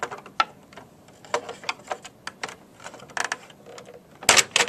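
Flathead screwdriver prying at the plastic front cover of a variable-speed drive: irregular clicks and scrapes of metal tip on plastic, with two loud sharp snaps near the end.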